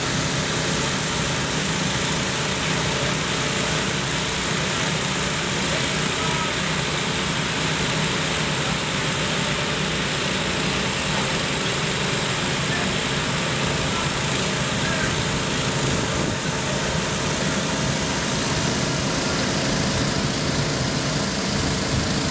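Several portable engine-driven dewatering pumps running together at a steady pace, a continuous drone with a few constant engine tones, pumping water out of the flooded hull.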